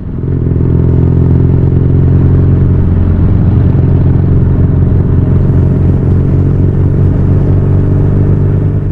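Motorcycle engine running loudly at a steady pitch, swelling up just as it starts.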